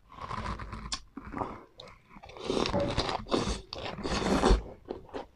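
Close-miked biting and chewing of a fresh lettuce-and-herb wrap, the crisp leaves crunching between the teeth. The crunching starts suddenly, eases after about a second, then comes back louder in a longer stretch before giving way to a few small clicks near the end.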